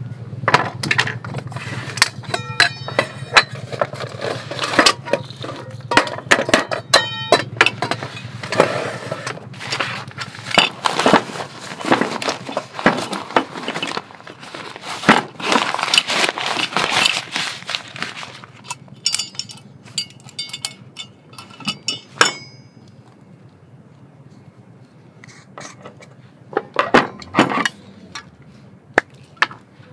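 Rustling fabric and a string of clicks, knocks and light clinks as a drawstring stuff sack is opened and a separate-type gas stove and its gas canister are handled on a wooden table. The handling goes quieter about two-thirds of the way through, with a few sharp clicks near the end.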